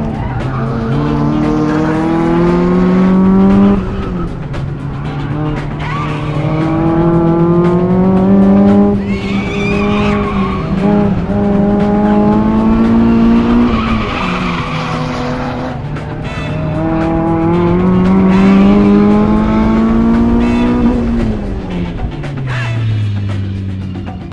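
1999 Mazda Miata's 1.8-litre four-cylinder, fitted with an aftermarket header and Borla exhaust, pulling hard on an autocross run, heard from the cockpit. The revs climb for several seconds at a time and drop sharply at gear changes about 4 and 14 seconds in, with tyre squeal in places. Near the end the revs fall away as the car slows.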